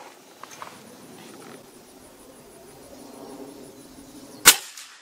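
A single suppressed rifle shot about four and a half seconds in: a Ruger American in 350 Legend firing a Winchester 255-grain subsonic round through a Banish 46 suppressor. It is a short, sharp report with a brief tail and no supersonic bullet crack, much more quiet than a supersonic load through the same can.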